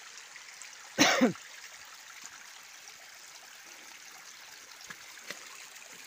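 Spring water trickling steadily out of a small forest well. About a second in, a man clears his throat once, briefly, the loudest sound.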